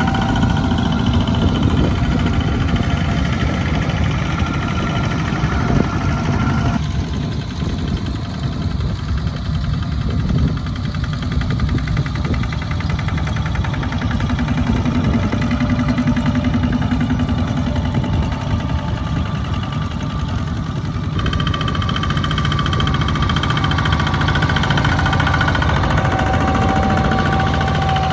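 Kubota two-wheel walking tractor's single-cylinder diesel engine running steadily under load as it pulls a loaded trailer. The sound changes abruptly twice, about a quarter and three-quarters of the way through.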